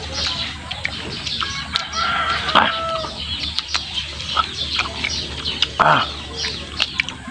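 Chickens clucking, with small birds chirping and a few short sharp clicks scattered through.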